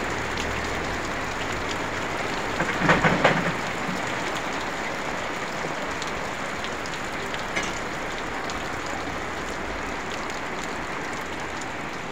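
Heavy rain falling steadily on a wet street and market stalls. A brief cluster of loud knocks comes about three seconds in, with a fainter one later.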